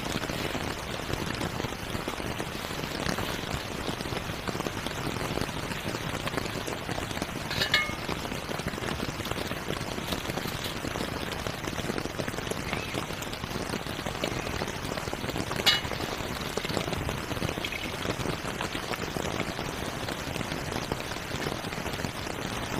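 Steady rain falling on a nylon dome tent, heard from inside. Two sharp clinks, about eight seconds apart, stand out above it.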